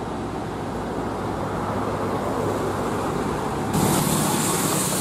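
UD Quester heavy truck's diesel engine running as it approaches on a wet road, with traffic noise around it. A loud hiss sets in suddenly near the end as the truck draws close.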